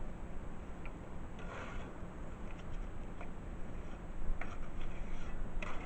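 A mason's trowel scraping and tapping mortar along the top of a wall as roof tiles are laid: a brief scrape about a second and a half in, then a few light clicks and scrapes near the end.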